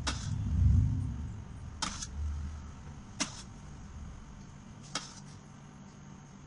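Four sharp clicks or taps spaced about a second and a half apart, over a low rumbling handling noise in the first few seconds.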